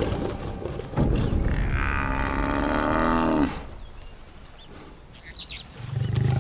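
African buffalo bull bellowing in distress while lions hold onto it: one long call of about two and a half seconds that drops in pitch as it ends. A low growl starts near the end.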